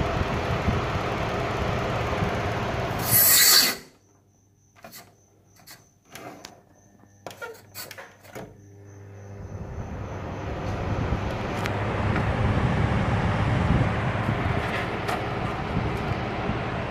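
Air conditioner indoor-unit fan running with a steady rush of air and a low hum, then a loud brief rush about three seconds in. It then cuts to near silence with a faint hum and several clicks, and from about nine seconds the airflow rises gradually back to a steady rush as the fan spins up again.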